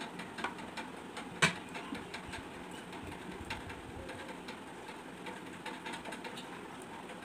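A person drinking the leftover rice water of panta bhat (fermented rice) straight from a glass bowl: repeated sips and swallows with small wet mouth clicks, and one sharper click about a second and a half in.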